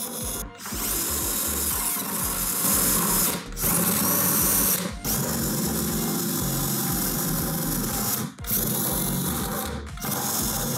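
Cordless drill with a step bit boring holes through a plastic bucket. It runs in several spells broken by brief pauses.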